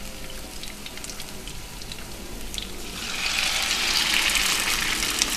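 Oil frying in a pot with light crackling, then about three seconds in a loud sizzle surges up and holds as cornstarch-coated, marinated chicken pieces go into the hot oil.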